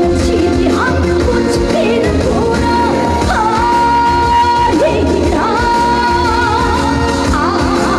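A woman singing a Korean trot song live over instrumental accompaniment, holding long notes with vibrato.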